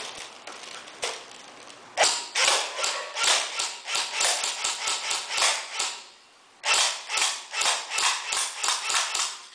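Cybergun AK47 airsoft electric gun firing semi-automatic, a quick string of single shots about three a second, a brief pause, then another string slightly faster. One lone click comes about a second in.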